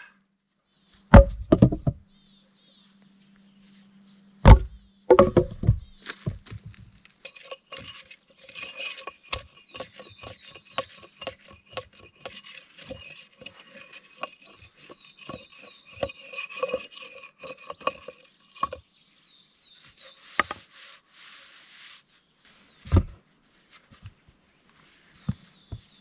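Wood being knocked and handled: a few loud knocks early on, then a long run of lighter taps and clinks, and another single thud near the end.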